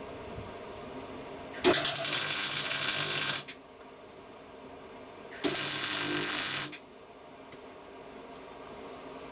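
MIG welder arcing in two short runs, the first about two seconds long and the second about a second and a half, each a steady loud crackle that starts and stops sharply: a steel tank-mounting post being welded onto a motorcycle frame.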